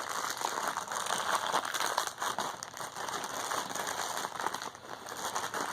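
Plastic wrapping crinkling continuously as a blind-box mini figure is unwrapped by hand.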